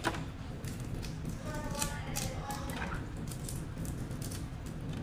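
Raw red prawns being peeled by hand: irregular small cracks and clicks of shell breaking and pulling away, over a steady low hum.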